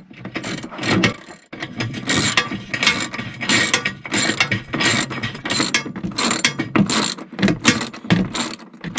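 Socket ratchet wrench clicking rapidly in repeated strokes, undoing the bolts of a van's front seat base so the seat can be removed.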